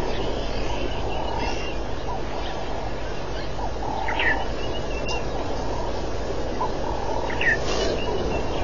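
Two short, high chirping animal calls, about four and seven and a half seconds in, over a steady rushing background noise.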